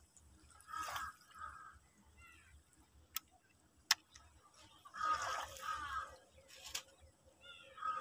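Water gurgling and dripping among shoreline rocks in short irregular bursts, with two sharp clicks near the middle.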